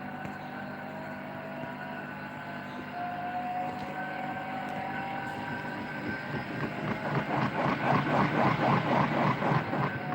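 Samsung front-load washing machine running, its motor and drum giving a steady hum with a faint rising whine. About six and a half seconds in, a loud rhythmic pulsing noise sets in at about four beats a second, grows louder, and stops shortly before the end.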